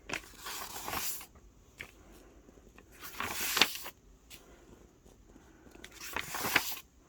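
Paper pages of a coloring book being turned: three short rustling swishes about three seconds apart.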